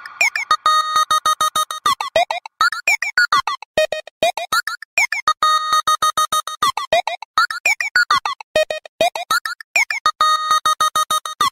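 Synthesizer keyboard music: a fast string of short, choppy notes with brief gaps, no drums or bass, and a phrase that comes round again every few seconds.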